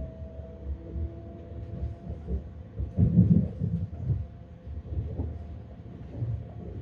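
Metra Electric gallery electric multiple-unit car running on the rails, heard from inside: a low rumble of wheels on track with a steady whine, and a cluster of heavier thumps about three seconds in.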